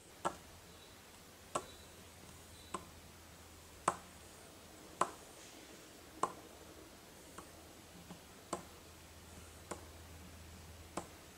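A plastic toy figurine tapped down on a tabletop as it is walked along: about ten light, sharp clicks a little over a second apart, some louder than others, over a faint steady low hum.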